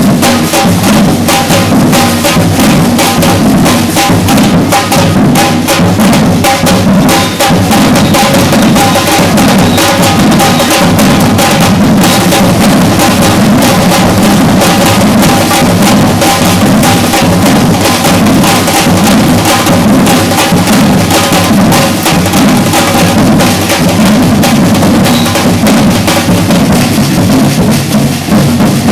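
Batucada drum ensemble playing a dense, continuous rhythm, with deep bass drums under rattling snare drums. It is loud throughout.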